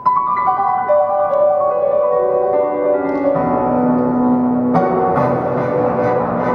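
Piano-led floor-exercise music playing for a gymnast's routine: a run of notes stepping downward, a low note held, then the accompaniment fills out with a steady beat about five seconds in.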